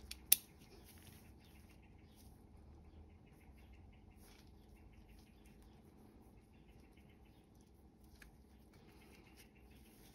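Gardena secateurs' steel blade and pivot parts being handled during reassembly: one sharp metallic click just after the start, then faint scattered small clicks and scrapes of metal parts.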